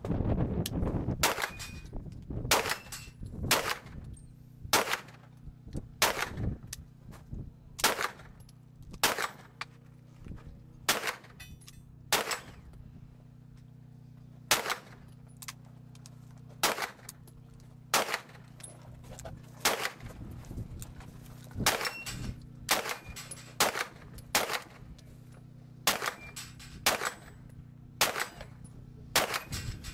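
Gunshots in a practical shooting stage: a long string of sharp single shots and quick pairs, spaced about a second apart, with short gaps between groups.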